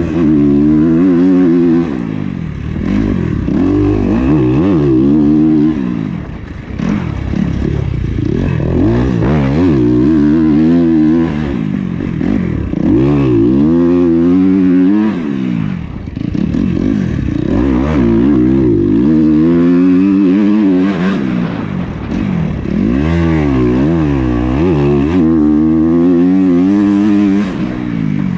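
2021 Kawasaki KX250's single-cylinder four-stroke engine, loud and close, revving up and falling away over and over as the bike is ridden hard through the gears, with a few brief throttle-offs.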